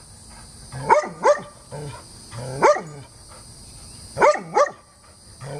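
German shepherd barking at a yellow rat snake: five sharp barks, a quick pair about a second in, a single one near the middle and another quick pair later.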